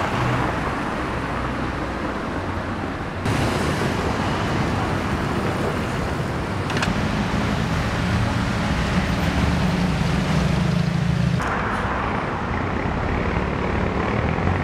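Street traffic: cars passing and engines running, with a low engine hum strongest in the middle as cars drive by close. The background shifts abruptly twice as the scene changes.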